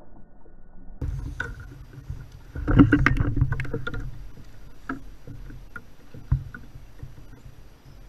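Water splashing beside a kayak as a hooked largemouth bass thrashes at the surface and is netted, loudest about three seconds in. Scattered knocks and clicks of rod, net and gear against the kayak follow.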